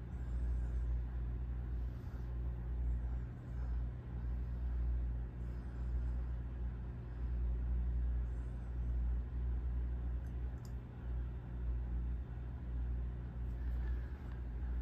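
Steady low rumble with a faint hum underneath, wavering slightly in loudness: background room and equipment noise with no distinct events.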